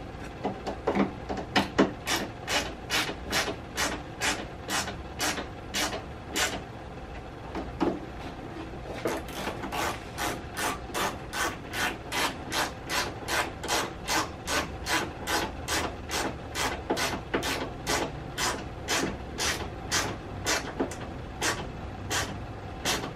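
Hand ratchet wrench clicking in short bursts, about two a second, as it runs down the tail light mounting bolts, with a pause of about two seconds partway through.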